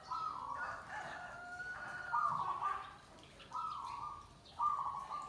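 Rooster crowing once, a drawn-out call of about three seconds, followed by two shorter calls near the end.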